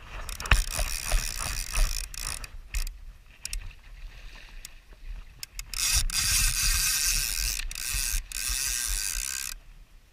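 Fly reel's click-and-pawl ratchet buzzing in short spurts, then a long run of about three and a half seconds from about six seconds in, as a hooked salmon pulls line off the reel.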